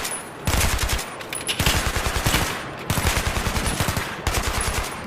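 Rapid automatic gunfire in several long bursts, one after another with short breaks between.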